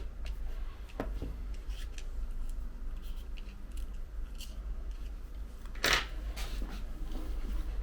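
Small tool clicks and taps on the internals of an iPhone 11 Pro Max as it is taken apart, with one louder sharp click about six seconds in, over a low steady hum.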